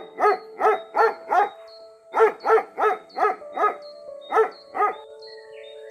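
Short, evenly spaced dog barks, about three a second in runs of five or six with brief pauses between runs, over music with held notes.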